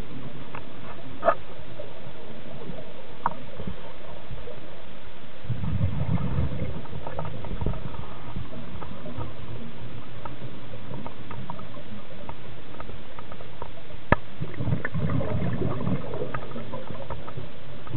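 Underwater sound picked up inside a camera housing: a scuba diver's exhaled breath bubbling out of the regulator in two rumbling bursts, about five seconds in and again about fourteen seconds in, over a steady hiss. A few sharp single clicks stand out, the loudest about a second in and another just after fourteen seconds.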